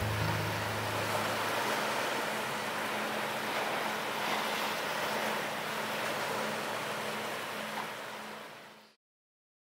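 Small waves washing in over a rocky shore, a steady rush of surf that fades away and cuts to silence about nine seconds in.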